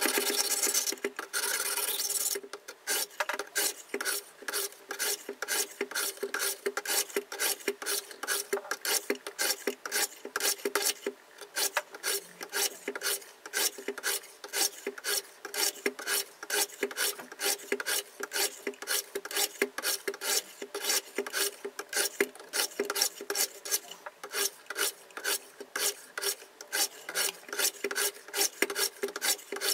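Diamond sharpening plates of a KMFS Rival sharpener rasping along a steel knife edge from both sides at once. One continuous rasp for about the first two seconds, then a long run of quick, even strokes, several a second.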